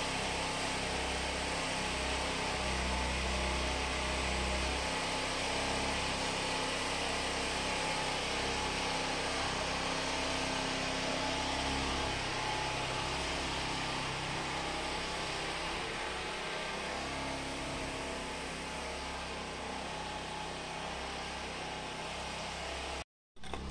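Steady low rumble with a hiss over it, dropping out for a moment near the end.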